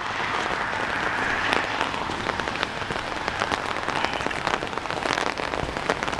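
Light, steady rain falling, with many small drops ticking close by.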